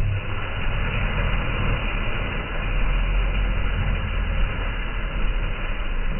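An engine running steadily, with a constant low hum and a rushing noise over it.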